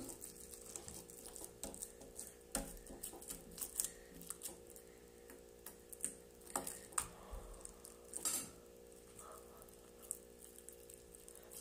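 Homemade glue slime being kneaded and pulled by hand, giving irregular sticky clicks and pops.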